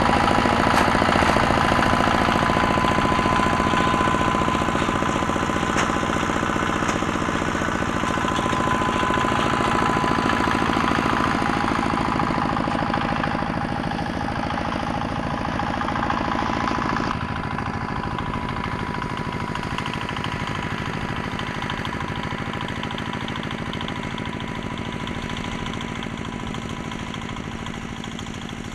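Homemade mini tractor's small engine running under load with a rapid, even beat as it drags hay, growing gradually fainter as it drives away across the field.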